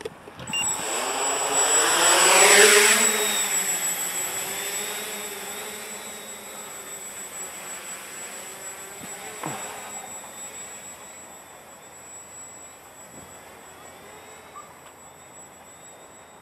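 Walkera Hoten-X quadcopter's four electric motors spinning up to take off, a loud whirring buzz rising in pitch with a steady high whine, then fading steadily as the quad flies away. One brief click about nine seconds in.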